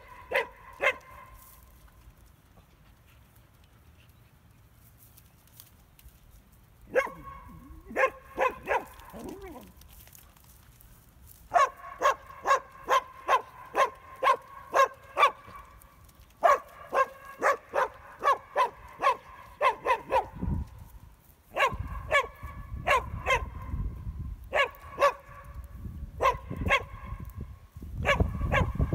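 Dog barking at donkeys in runs of short, sharp barks, about three a second, with pauses between the runs. A low rumble joins in for the last third.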